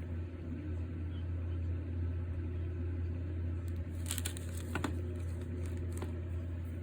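A steady low background hum, with a few faint crackling snaps about four, five and six seconds in: Golden Double Stuf Oreo cookies cracking in the jaws of linesman's pliers.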